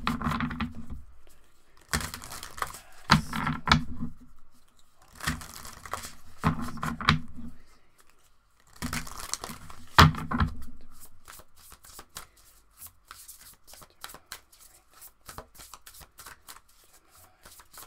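Oracle cards being handled and shuffled: a few short stretches of quiet, unclear voice over the card noise in the first ten seconds or so, then a rapid run of crisp card clicks from about eleven seconds in.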